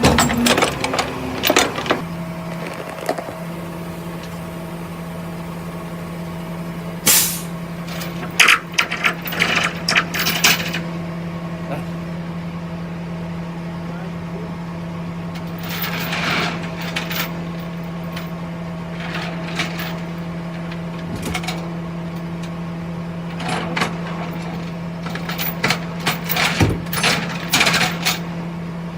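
A steady mechanical hum from a running vehicle. Bursts of clanking and rattling come about seven seconds in, again for a couple of seconds from about eight and a half, around sixteen seconds, and repeatedly in the last several seconds.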